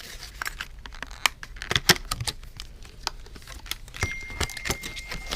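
Small metal and plastic phone parts and tools clicking and tapping on a work surface in irregular, scattered taps, as an iPhone screen's metal backing plate is taken off.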